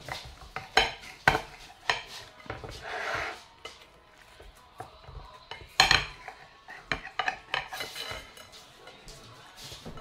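A knife clacking and scraping against a plate as it cuts a crispy quesadilla into wedges: a scattered series of sharp clacks, the loudest about six seconds in.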